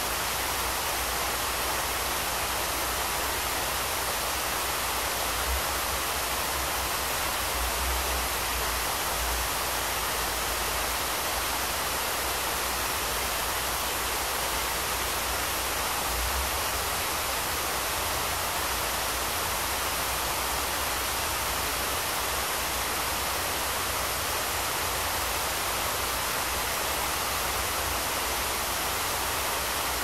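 Artificial waterfall, a sheet of water falling from a wall-top ledge into a pool, with a fountain jet splashing beside it: a steady, unbroken rush of falling and splashing water.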